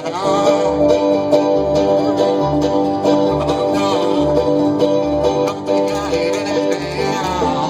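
Live band playing an instrumental passage: plucked strings over held, sustained notes, with a low beat about once a second. It is recorded through a microphone with nearly dead batteries, which the uploader credits with an unusual effect on the sound.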